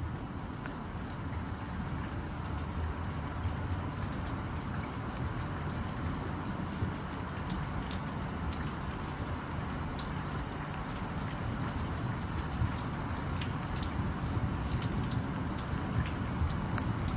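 Steady rainfall with many scattered sharp drop hits.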